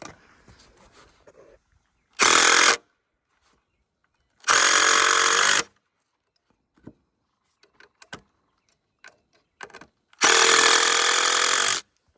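Impact driver driving screws into 2x4 lumber in three bursts: a short one about 2 seconds in, a longer one at about 4.5 seconds, and the longest near the end, with small handling clicks between them.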